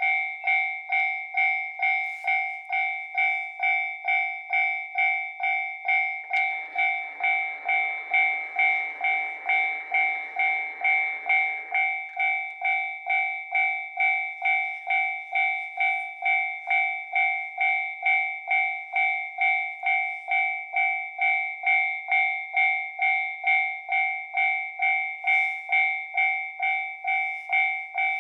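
Japanese railway level crossing warning bell ringing steadily at about two strikes a second, the signal that a train is approaching. A faint rushing noise joins it for about five seconds, starting about six seconds in.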